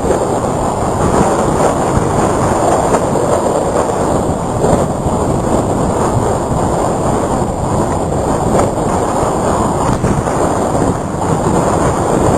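Hurricane-force wind blowing hard and steadily, with the gusts rumbling on the microphone.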